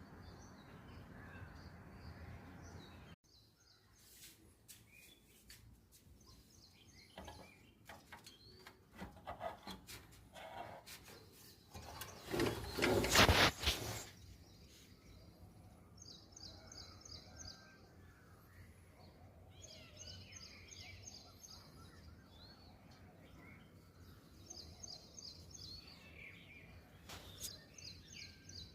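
Birds calling at dawn: rapid, high chirping trills repeat every few seconds, with other scattered calls. About twelve seconds in, a loud noisy burst lasts about two seconds. In the first few seconds a low steady hum cuts off suddenly.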